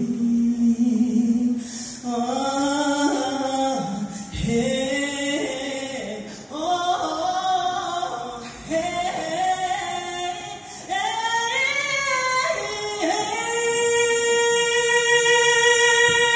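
A woman singing unaccompanied into a microphone over a hall's sound system, her voice gliding between notes in short phrases, then holding one long, steady note for the last few seconds.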